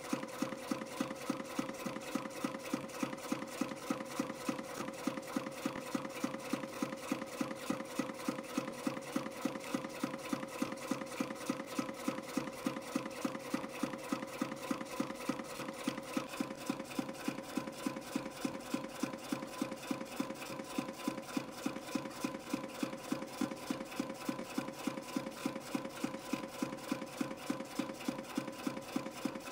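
CNC spring coiling machine forming 0.35 mm wire into compression springs at about 200 springs a minute. It runs with a steady hum and a sharp click about three times a second, one for each spring.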